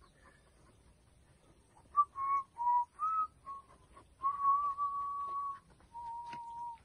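A person whistling: a few short notes, then two longer held notes.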